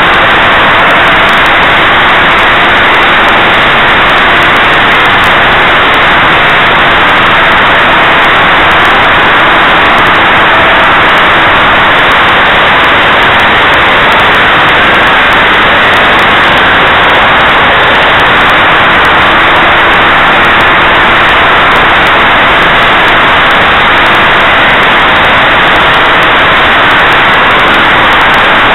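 An OS 49-PI single-rotor Wankel glow engine in a radio-controlled P-51 model runs continuously in flight, heard from an onboard camera together with rushing air. The sound is a loud, dense noise, near full level throughout, with a faint engine pitch that shifts a little as the plane manoeuvres.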